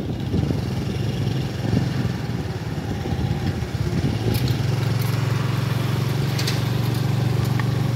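Wind rumbling on the microphone, then from about four seconds in a small engine humming steadily close by.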